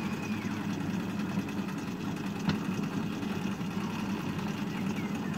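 Engine of a miniature railway shunter running with a steady low hum, with a single sharp click about two and a half seconds in.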